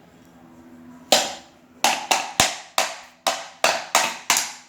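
About nine sharp knocks on metal, the first about a second in and the rest coming in a quicker run, each ringing briefly: striking at a car radiator fan motor's housing to free its end cover.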